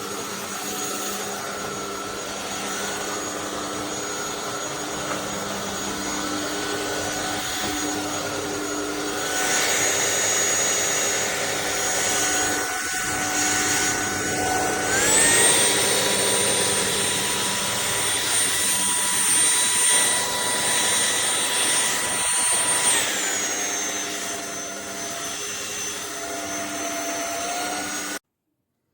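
Anyson cordless stick vacuum cleaner running with a steady high whine. About halfway through the motor speeds up with a rising whine and holds there, then slows back down to a lower pitch. The sound cuts off abruptly just before the end.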